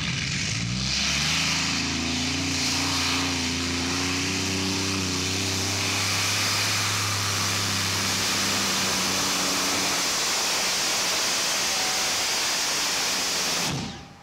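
Modified-class pulling tractor engines at full power on a pull: the engine note climbs about a second in as it launches, then holds at a loud, steady pitch over a harsh roar. The sound cuts off abruptly near the end.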